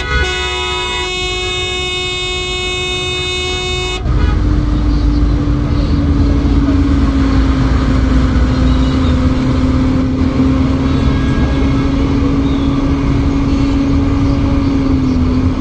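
A vehicle horn held for about four seconds, cutting off sharply, followed by louder traffic with engine rumble and a steady low drone that sinks slightly in pitch.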